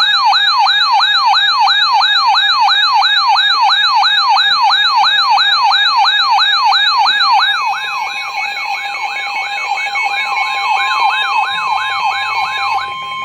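Electronic siren in a rapid yelp, its pitch sweeping up and down about three times a second over a steady tone. It drops somewhat in level after about seven and a half seconds and stops just before the end.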